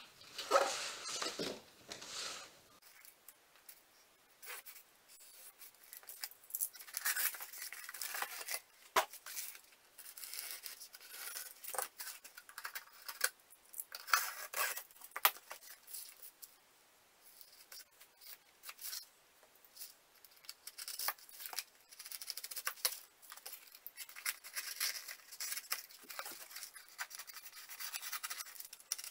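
A knife cutting corrugated cardboard in short, irregular scraping strokes, with the cardboard sheets being shifted and handled in the first couple of seconds.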